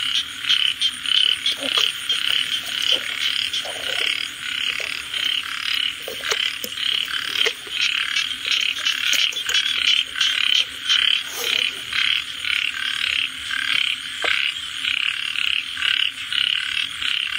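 A dense chorus of many frogs calling at once: a continuous, pulsing din with no break.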